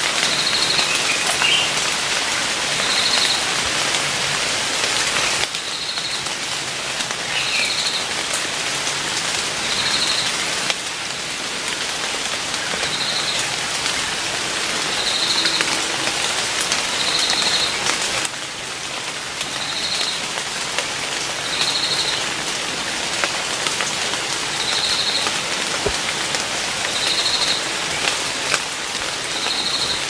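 Forest ambience: a steady hiss with a short, high trilled call repeated about every two seconds.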